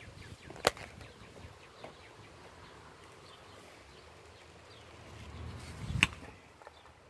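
Two sharp clicks about five seconds apart, from glass jars and their lids being handled. A short, low rustle swells just before the second click.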